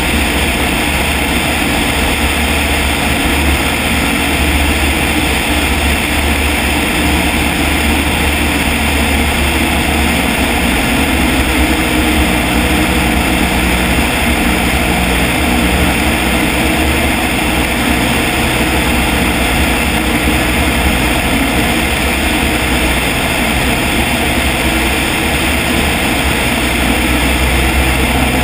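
Engine and propeller of a small single-engine Cub-type aircraft running steadily in flight, with no change in power. Airflow rushes over a camera mounted outside on the aircraft.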